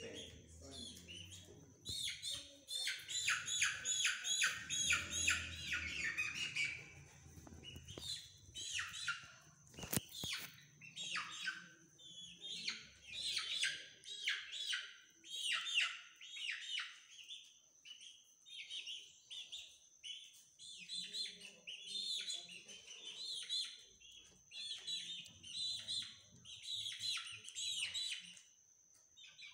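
Young chickens peeping over and over, with high calls that slide downward in pitch and a fast run of peeps a couple of seconds in. A faint steady high whine runs underneath, and there is one sharp click about ten seconds in.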